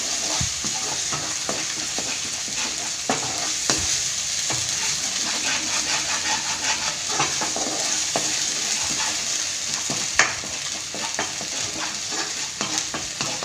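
Ground chow chow (chayote) chutney frying in a kadai with its tempering of hot oil, sizzling steadily while a spatula stirs it, scraping and tapping the pan again and again. It is being sautéed so that the raw smell cooks off.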